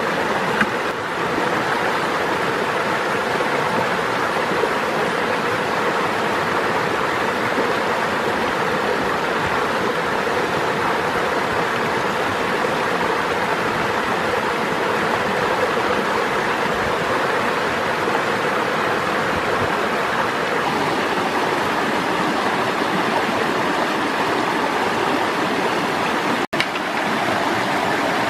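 Shallow rocky stream rushing over small cascades: a steady, even rush of water, broken by an instant of silence near the end.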